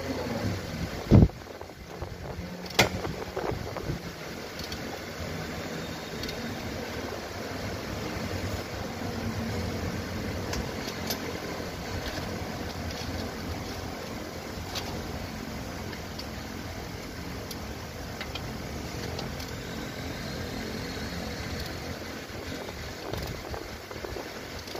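Nissan Serena C27 engine running steadily at idle, the ribbed drive belt turning the alternator and pulleys. Two sharp knocks in the first three seconds, the first one about a second in and the loudest.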